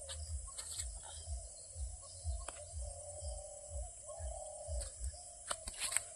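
Outdoor ambience among a troop of gray langurs: a steady high-pitched buzz under an intermittent low rumble on the microphone, with scattered clicks and rustles of the monkeys moving over dry leaves and dirt, most of them near the end.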